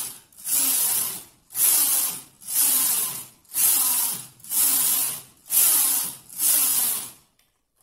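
Carriage of a punch-card domestic flat-bed knitting machine slid back and forth across the needle bed, knitting a row on each pass. About eight loud, hissing swishes, each a little under a second long, come roughly one a second with short gaps between them.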